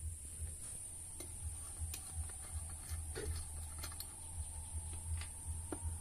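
Scattered light metallic clicks and ticks of a screwdriver working the nuts on a ceiling fan's metal motor housing, over a low hum and a thin high hiss.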